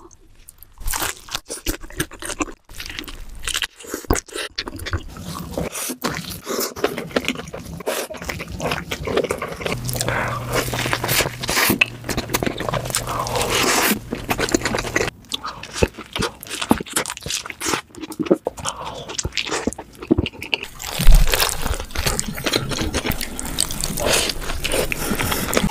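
Close-miked mukbang eating: crunchy bites into burgers and fried chicken, with wet chewing in between, one after another. One bite, late on, is much louder than the rest.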